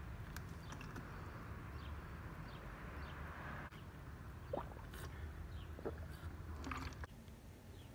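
A person gulping water down fast from a thin disposable plastic water bottle. The bottle crackles and clicks as it is gripped and tipped up, with a few sharp plastic crackles in the second half.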